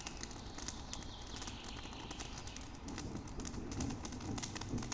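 Birds chirping during the first second or so, over irregular light clicks and crackles that run throughout.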